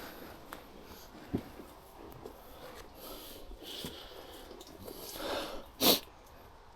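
A hiker's breathing, faint, with one short loud breath or snort about six seconds in.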